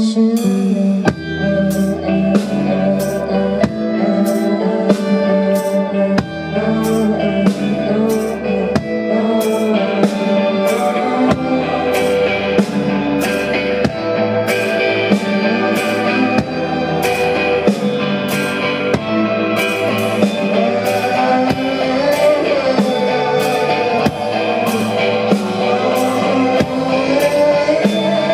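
Live band music: a drum kit comes in right at the start with a steady cymbal beat, over bass notes and guitar chords.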